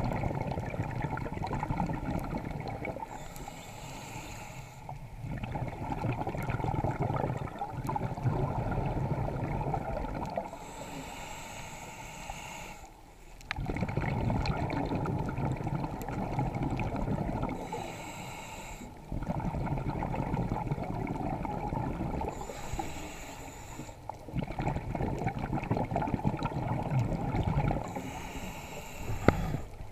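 Scuba diver breathing through a regulator underwater: a short hissing inhale through the demand valve, then a longer, louder bubbling rush of exhaled air, repeated about five times in a slow, even rhythm.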